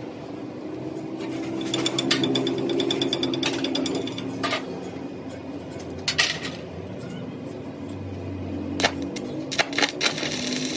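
A machine running with a steady hum. For about two seconds it gives a fast, even rattle, and then several sharp knocks follow, a quick cluster of them near the end.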